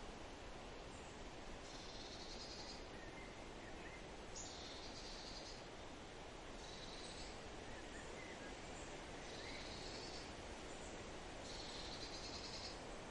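Forest stream flowing steadily, with a bird's high trill of about a second repeating roughly every two to three seconds and a few faint short chirps.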